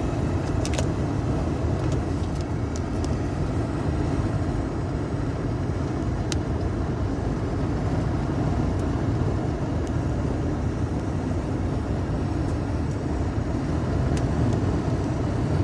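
Steady low road and engine rumble heard inside the cabin of a moving car, with a few faint clicks.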